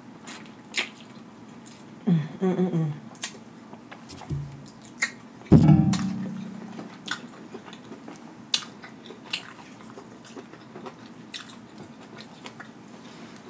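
Close-miked chewing of lobster tail meat, with wet mouth clicks and smacks throughout. A wavering hum of enjoyment comes about two seconds in, and a louder voiced sound a little after five seconds.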